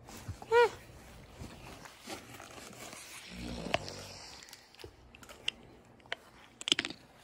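German shepherd giving a short high whine about half a second in, then a brief lower vocal sound around three and a half seconds, with scattered clicks and knocks from handling and movement later on.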